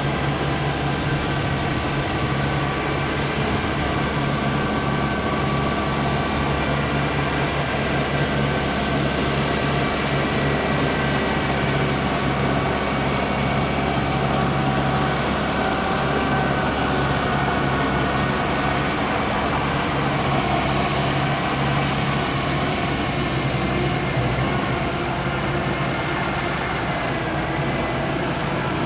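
Kubota diesel engine of a tracked rotary tiller running steadily under load while tilling a muddy rice field, a constant drone with no change in speed.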